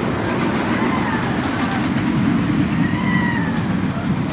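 Storm Chaser's coaster train running along its RMC I-Box steel track on the wooden structure: a steady heavy rumble. Riders' voices rise and fall over it, about a second in and again about three seconds in.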